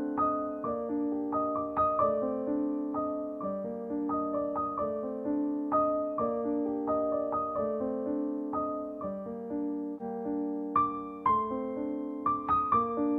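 Background piano music: single notes struck in a slow melody over held lower notes.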